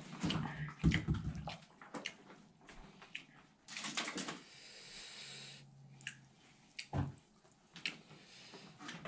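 Close mouth sounds of a person eating rice and curry by hand: wet chewing and lip smacks as a string of short clicks, with one longer, louder wet sound about four seconds in.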